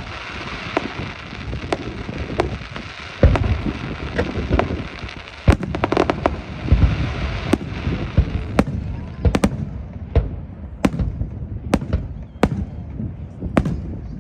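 Fireworks exploding: crackling over a hiss at first, two big low booms at about three and five and a half seconds, then a run of sharp single bangs roughly once a second.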